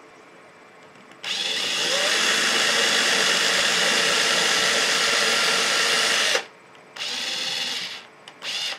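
Cordless drill spinning a small bit into a clarinet's body to bore a screw hole. It starts about a second in, runs steadily for about five seconds and stops, then gives two short bursts.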